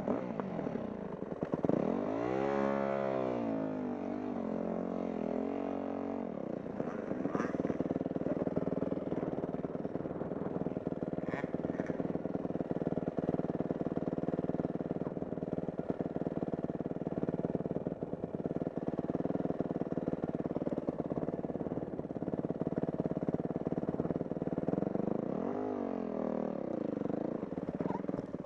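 Dirt bike engine running steadily, revved up and down a couple of times a few seconds in and again near the end.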